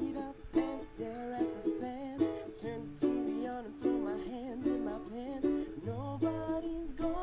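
Background music: a light instrumental of plucked strings, like a ukulele, played in a steady rhythm.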